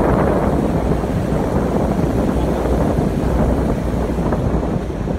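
Wind rushing steadily over a phone's microphone from a moving vehicle, with the vehicle's road noise underneath.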